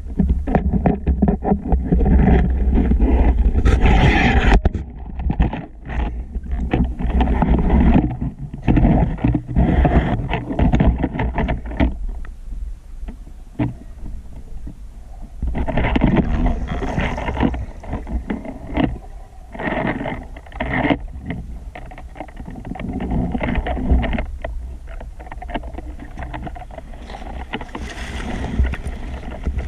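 Underwater noise through a camera housing mounted on a speargun: a heavy low rumble of moving water with frequent small clicks and knocks, louder in stretches.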